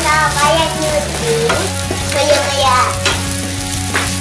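Stir-frying in a non-stick wok: a wooden spatula scraping and turning flat rice noodles and greens, with a steady sizzle of the hot pan and repeated scrapes and knocks of the spatula against the wok.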